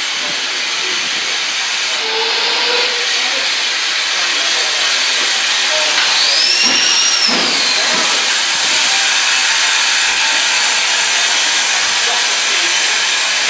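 Small steam tank locomotive hissing steadily as it moves slowly alongside the platform, hauling its coaches. A brief high squeal rises and falls about six seconds in.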